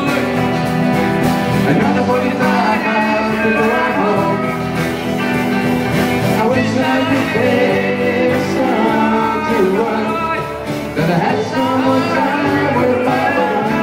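Live band playing a loud country-rock song on acoustic and electric guitars and keyboard, with singing.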